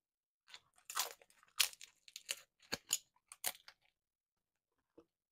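Crisp grilled kombu being bitten and chewed: a quick run of sharp, irregular crunches from about half a second in until nearly four seconds in.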